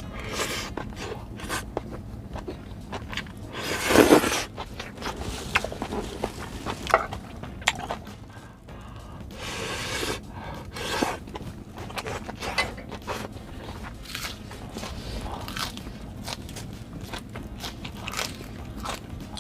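Close-miked eating of grilled beef intestines (gopchang and makchang): chewing with many small clicks and scrapes, and a louder noisy burst about four seconds in.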